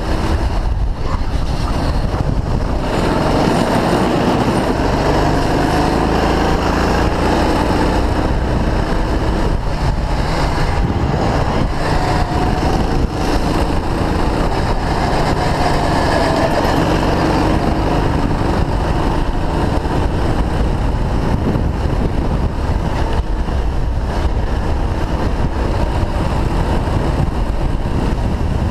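Go-kart engine running at speed through a lap, heard from the driver's seat, its pitch slowly rising and falling as the kart accelerates and slows for corners over a heavy low rumble.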